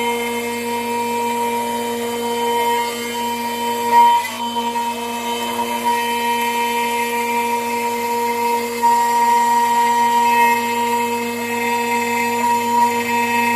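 CNC router spindle running with a steady whine as its end mill cuts a metal part, with a brief louder cutting sound about four seconds in.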